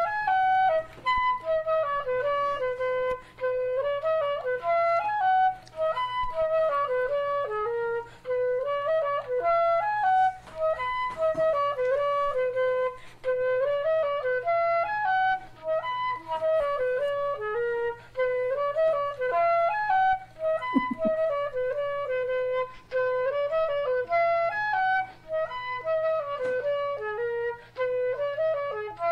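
A flute playing a simple melody one note at a time, with short breaks between phrases and the same phrases coming round again.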